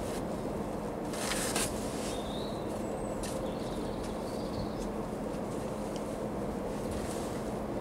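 Steady background hum with a few brief high chirps, and a short rustle about a second in as hands work a new timing belt onto the engine's sprockets.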